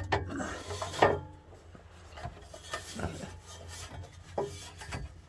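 Scraping and rubbing of a car driveshaft being worked by hand at its splined slip joint, with a sharp knock about a second in, then quieter scattered scrapes and clicks.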